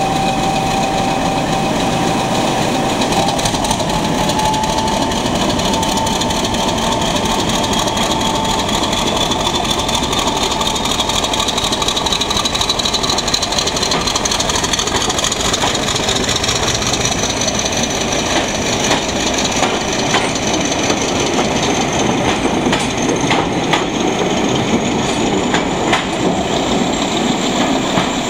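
British Rail Class 50 diesel locomotive pulling away with a train of coaches. Its English Electric 16-cylinder engine runs under power with a whine that rises slowly in pitch. In the second half the coach wheels click over the rail joints as the train passes.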